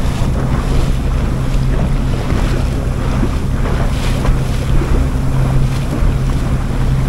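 Sightseeing boat under way, its engine running with a steady low hum, with wind buffeting the microphone and water rushing past the hull.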